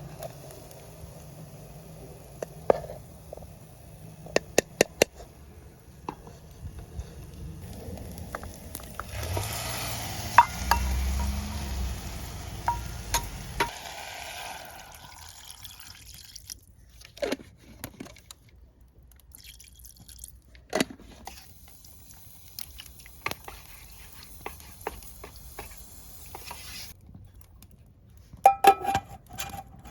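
Cooking sounds from a camp stove: scattered clinks and knocks of cookware and utensils, with a few seconds of liquid sloshing or pouring around the middle.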